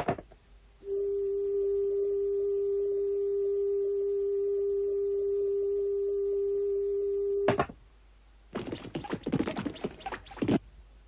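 Cartoon sound effects: a steady electronic tone held for about six and a half seconds, then, after a short pause, a run of quick scratchy clicks.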